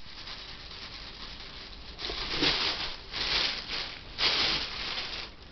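A sack rustling and crinkling as a cat burrows its head into it. There are three loud bouts of rustling, starting about two, three and four seconds in.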